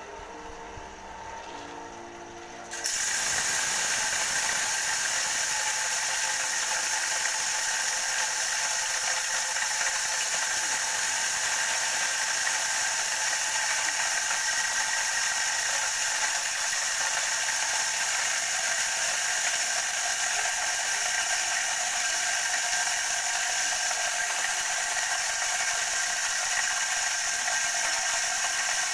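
Homemade corn grinder driven by a water-pump motor starts up abruptly about three seconds in, then runs steadily with a loud, high-pitched mechanical whir.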